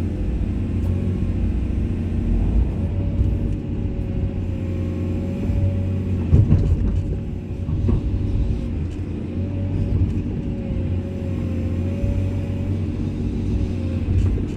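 Komatsu excavator's diesel engine running steadily under load, with a slightly wavering whine above the low drone. A few sharp knocks come in the middle, the loudest about six seconds in.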